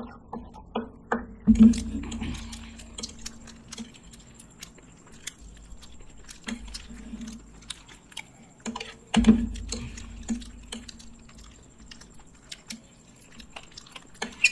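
Close-up eating sounds: chewing and biting into fried chicken and noodles, with many small clicks of a fork against a plate. Two heavier thumps come about a second and a half in and again about nine seconds in.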